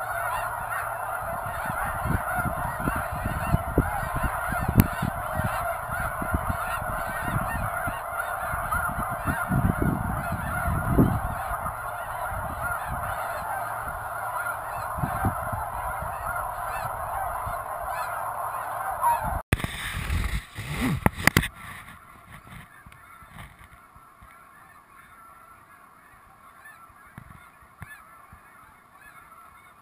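Flock of snow geese calling: a dense, continuous chorus of honking and yelping from many birds at once, with low rumbles and thumps underneath. About two-thirds of the way through, the loud calling breaks off with a few knocks, and only faint, more distant calling remains.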